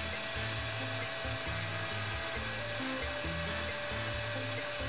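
Hot air rework station blowing a steady hiss of hot air with its airflow turned up, heating solder joints to desolder a part. Background music with a stepping bass line plays under it.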